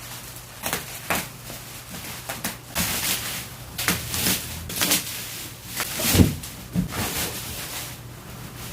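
A box being unpacked by hand: an irregular run of rustles, scrapes and knocks, with the loudest thump about six seconds in.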